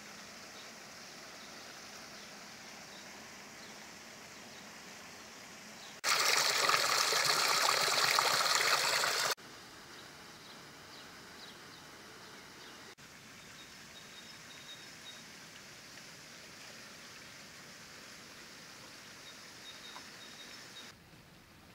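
Shallow river water rushing over rocks, loud for about three seconds near the middle and cutting in and out abruptly; otherwise a faint steady outdoor hiss.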